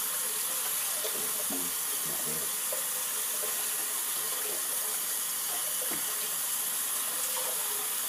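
Water running steadily from a sink tap, a constant even hiss with a few faint low knocks near the start.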